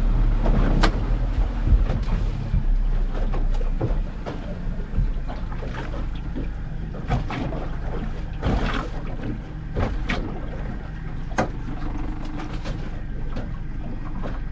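A boat's engine running steadily on the water with a low rumble, with scattered knocks and clicks on board.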